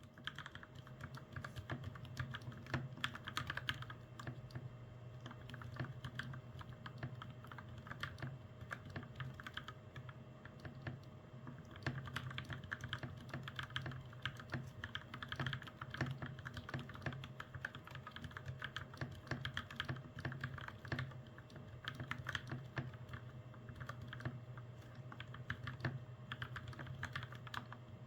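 Mechanical keyboard being typed on steadily, a dense run of irregular keystroke clicks, over a faint steady low hum.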